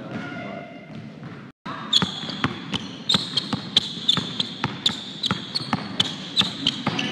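Basketball dribbled hard on a hardwood gym floor: quick, regular bounces, about two to three a second, starting about two seconds in.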